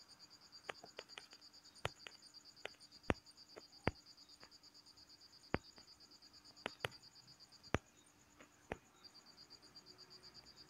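A dozen or more sharp, irregular taps of a fingertip on a smartphone touchscreen as emboss sliders and plus/minus buttons are adjusted. Behind them runs a high, fast-pulsing trill that stops for about a second near eight seconds in.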